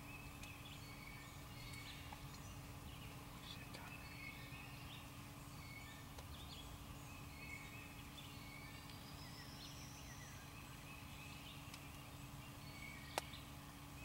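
Woodland ambience: scattered songbird chirps and whistles, including one long rising whistle midway, over a steady low hum, with a single sharp click near the end.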